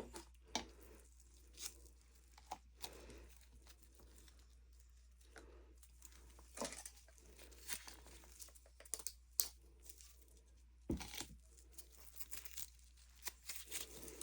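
Faint handling of plastic mixing cups: scattered light clicks, taps and crinkling rustles as cups are fetched and set down.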